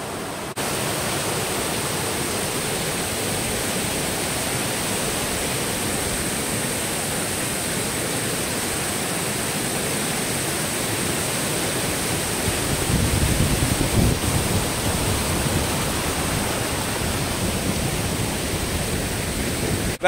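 Waterfall water rushing steadily over a rock ledge as it breaks into white water and drops over the edge. It grows louder for a moment, with more low rumble, about two-thirds of the way in.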